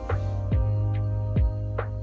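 Background music: a steady beat with deep bass and sustained chords.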